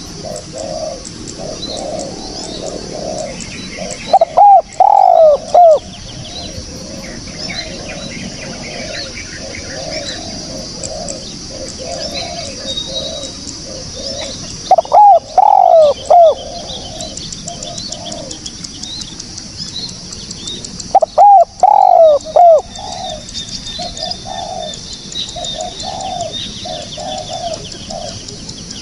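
Spotted doves cooing: three loud phrases of several falling coo notes each, about four, fifteen and twenty-one seconds in, over softer repeated coos. Small birds chirp high and thin throughout.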